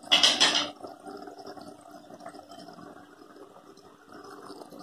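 Thick yogurt gravy with pointed gourds simmering in a pan, a faint low bubbling, after a short sharp burst of noise at the very start.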